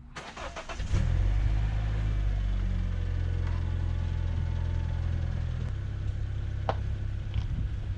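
Car engine starting about a second in, then running with a steady low rumble. A short sharp click sounds near the end.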